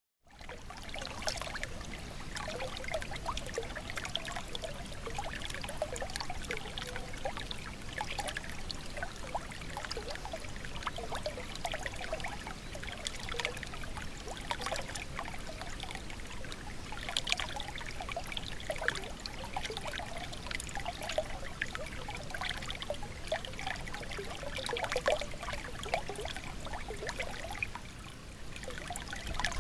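Small stream of water trickling and babbling steadily, with many quick bubbling plinks and drips over a constant rush.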